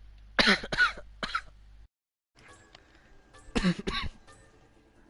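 A coughing fit of harsh, barking coughs: three in quick succession, then two more about two seconds later.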